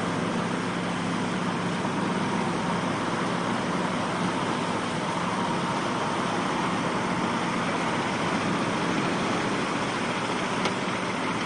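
Heavy truck engine running under load as the truck is pulled out of the surf on a tow cable, mixed with the steady wash of waves. A single sharp click comes near the end.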